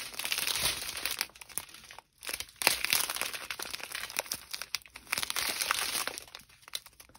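Small plastic bags of diamond-painting drills crinkling as they are handled and sorted, with a brief lull about two seconds in.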